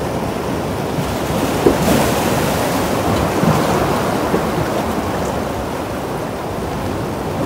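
Sea surf washing against rocks, a steady rush of water, with a wave breaking a little louder about two seconds in.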